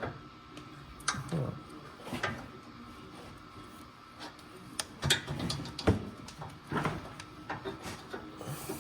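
Scattered clicks and knocks of hands working plastic wiring plug connectors, pushing and twisting them to get them to seat.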